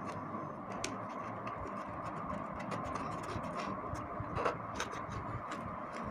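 Faint scattered clicks and taps of a green plastic drive coupling being screwed by hand onto the motor shaft of a Moulinex blender base, over a steady low hiss, with the motor switched off.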